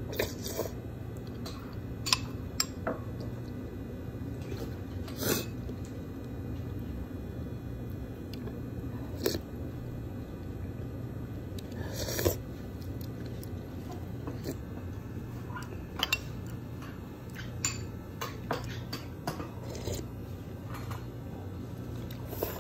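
A ceramic soup spoon clinking against a ceramic bowl in scattered single knocks, a few more close together near the end, over a steady low hum.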